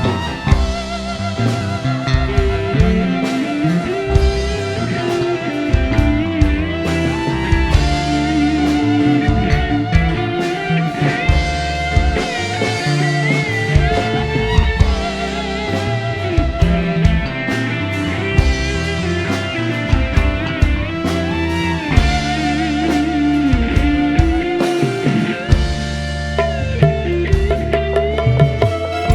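Band music with electric guitar, drum kit and bass under a wavering, held melody line, played loud through a PA sound system for a sound check.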